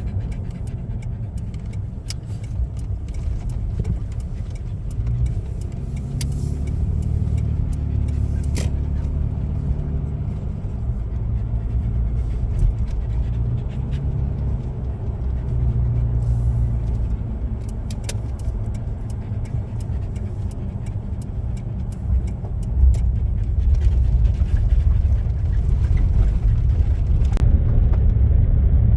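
Car driving along the road, a steady low rumble of engine and road noise.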